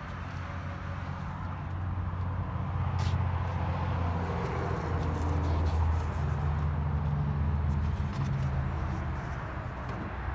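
1998 Chevrolet truck's engine idling, a steady low hum that gets louder over the first few seconds and shifts pitch slightly in the middle.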